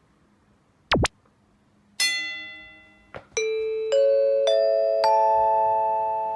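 A string of comedy video sound effects. First a quick tone swoops down and straight back up. Then a bell-like ding rings out and fades, and after a click four mallet-like notes come in one after another, each higher than the last and each ringing on, so they build into a held chord.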